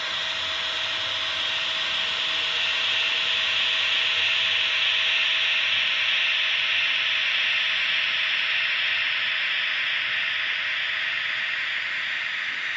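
Märklin H0 model Ce 6/8 II Crocodile locomotive running along the layout track: a steady rushing hiss of motor and wheels with a faint steady whine, swelling as it passes closest about four to five seconds in, then slowly fading.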